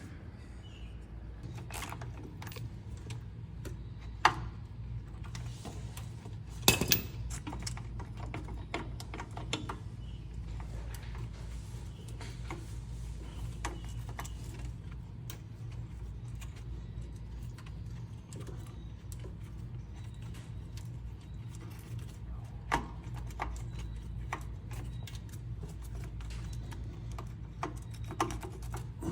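Hand tools and small steel parts clicking and clinking now and then while plates and a spring are taken off a tractor's PTO lever housing, over a steady low hum.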